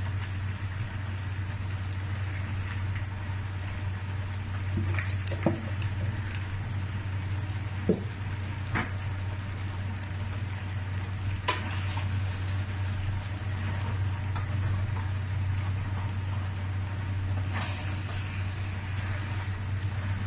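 Pot of plantain porridge cooking, with a few short knocks of a spoon against the pot over a steady low hum.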